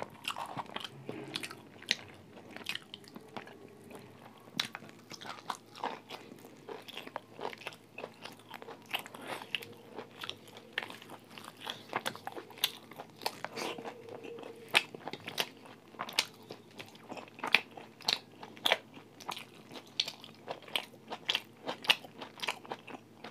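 Close-up chewing and crunching of food in the mouth: a steady run of irregular wet, crackly clicks, a few each second, some sharper and louder than others.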